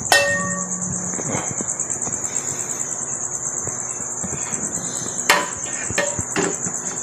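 Crickets chirping in a steady, high, pulsing trill. Right at the start a metal cooking-pot lid clanks and rings briefly as it is lifted off, and there is another sharp metallic knock about five seconds in, followed by a couple of lighter knocks.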